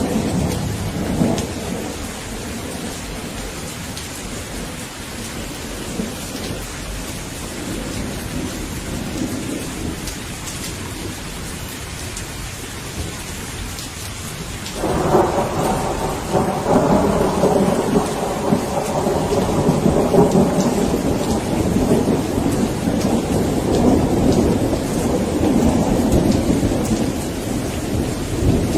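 Steady rain with rolling thunder. A rumble dies away about a second in, then a loud thunder roll starts suddenly about halfway through and rumbles on to the end.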